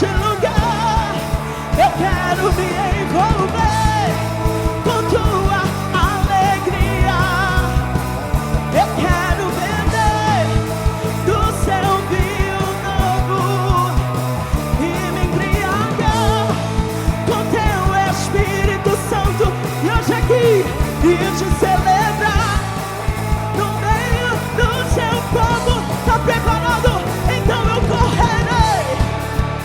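Live band playing upbeat Christian worship music, with singing voices over the instruments.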